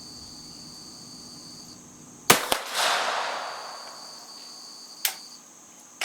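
A Swiss Vetterli rifle fired once, a sharp crack about two seconds in followed by more than a second of fading echo. A single metallic click comes near the end. Crickets chirp steadily underneath.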